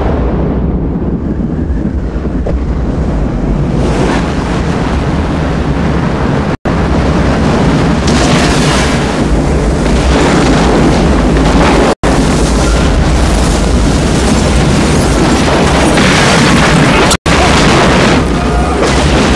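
Film sound effects of a giant asteroid impact and the tidal wave that follows: a loud, continuous rumbling blast and rushing roar. It grows fuller after a few seconds and breaks off for an instant three times at picture cuts.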